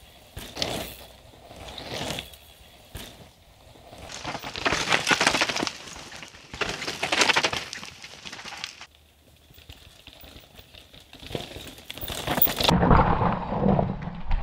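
Downhill mountain-bike tyres crunching and skidding over dry dirt and loose stones as riders pass, coming and going in swells, two of them loudest in the middle. Near the end, a duller rumble with knocks and rattles as a bike comes down over rocks.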